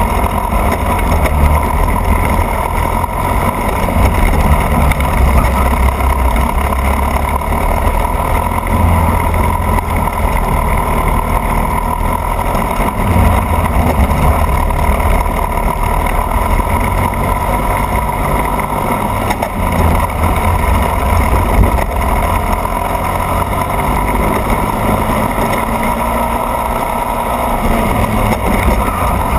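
Racing kart engine running hard at speed, its pitch rising and falling continuously, with heavy low rumble from wind and vibration on the onboard microphone.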